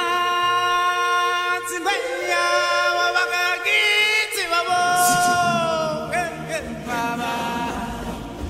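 Background music of sung vocals: long held notes that glide in pitch, with a fuller low accompaniment coming in about halfway through.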